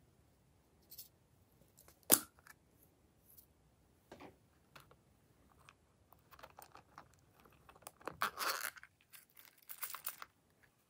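Small plastic slime container being handled and opened, with a single sharp tap about two seconds in. Crinkly crackling follows, loudest about eight seconds in, then a quick rattle near the end as black sequin topping is shaken out into the tray.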